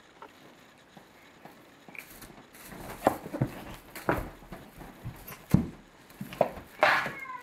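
Bengal kitten pouncing and scrabbling on a sheepskin rug at a string toy: quiet at first, then from about two seconds in a run of thumps and rustling, several of them sharp, ending with a short falling meow.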